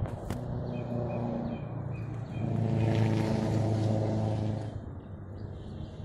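A motor vehicle's engine running as it passes, swelling to its loudest about halfway through and then fading, with a couple of knocks at the start.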